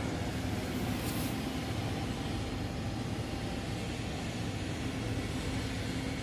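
Steady low machinery rumble with a faint hum underneath, and a brief high hiss about a second in.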